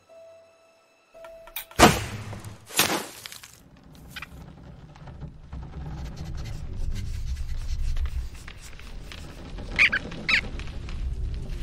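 Animated-film sound effects: two loud, sharp swishes about a second apart, then a low, steady rumble with a couple of short high squeaks near the end.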